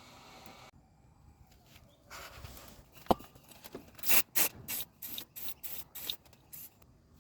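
A sharp click, then a run of short rubbing or scrubbing strokes, about two a second, that stop shortly before the end.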